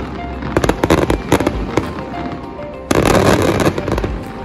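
Multi-shot fireworks finale cakes firing: rapid volleys of bangs and crackle in quick succession, merging into a dense, nearly continuous barrage about three seconds in.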